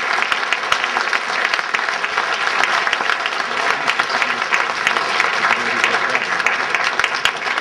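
Audience applauding: many hands clapping in a dense, steady burst of applause.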